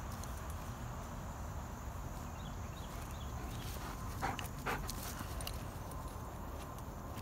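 A dog gives two short barks about half a second apart, a little past halfway, over a steady low rumble.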